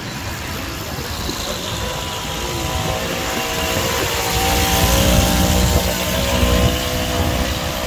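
Engine of a small tourist road train running as it drives along, heard from an open-sided carriage with road noise. It hums steadily and grows louder around the middle.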